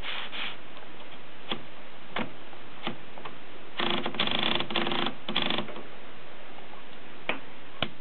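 Kolibri typewriter's platen being turned by its knob, the ratchet clicking: single clicks spaced well under a second apart, then a fast run of clicks for nearly two seconds in the middle, then two more clicks near the end.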